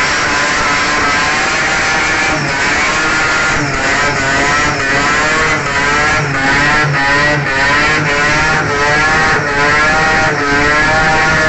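Mazda RX-3's fuel-injected 13B peripheral-port rotary engine revving hard during a burnout, the rear tyres spinning and smoking. The revs rise and fall over and over, dipping briefly about once a second.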